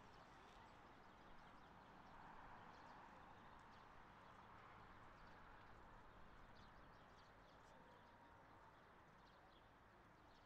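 Near silence: faint outdoor ambience with light footsteps and occasional small bird chirps.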